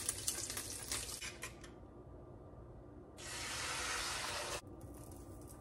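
Kitchen tap running with light clinks and clatter for the first two seconds. About three seconds in comes a separate steady hiss of about a second and a half that starts and stops abruptly.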